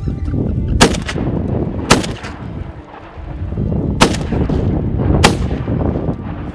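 Four shotgun shots, the first two about a second apart, then two more about two seconds later and about a second apart, over a steady low rumble.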